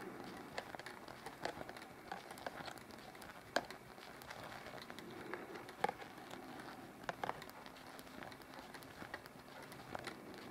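Knitting needles clicking faintly and irregularly as a row of knit stitches is worked.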